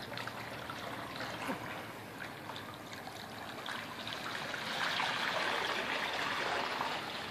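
Water rushing and trickling as a fishing torpedo's electric thruster motor churns the pool water while it runs at full speed. The rushing grows louder about four and a half seconds in and eases near the end.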